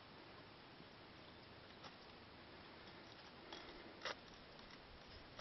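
Near silence: a faint steady hiss with a few soft clicks, the clearest one about four seconds in.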